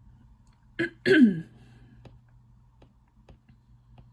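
Stylus tip tapping on an iPad's glass screen, a few light single clicks spaced roughly half a second to a second apart. About a second in, a brief vocal sound from the user, a quick catch and then a louder sound dropping in pitch, is the loudest thing heard.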